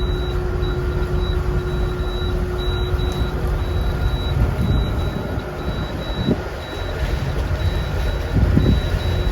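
A high electronic alarm beeping steadily, about two and a half beeps a second, over heavy wind noise on the microphone. A low steady hum stops about four seconds in.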